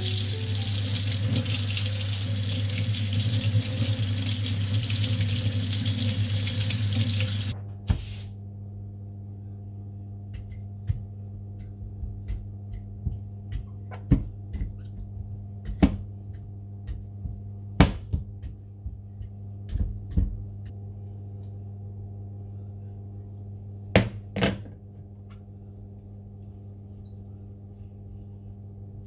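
Kitchen tap running into a stainless steel sink while a sweet potato is scrubbed under the stream; the water cuts off about seven and a half seconds in. After that a steady low hum continues, with a series of sharp clicks and taps as a knife pricks the sweet potato on a baking tray.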